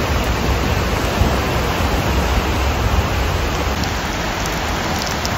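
Steady rushing of a rain-swollen river running fast and high in its concrete flood channel, mixed with falling rain.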